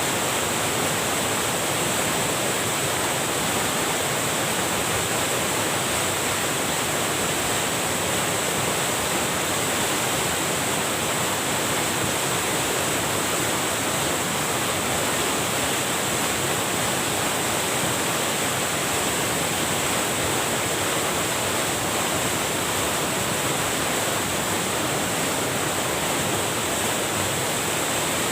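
Steady, unbroken rush of water pouring over a small weir (grojokan), the flow swollen by heavy rain.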